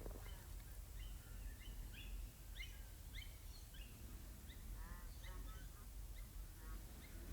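Birds calling, with many short chirps scattered through and a cluster of louder calls about five seconds in, over a steady low background rumble.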